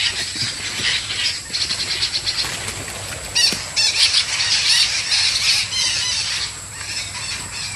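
Long-tailed parakeets giving shrill, squealing calls over and over in quick series.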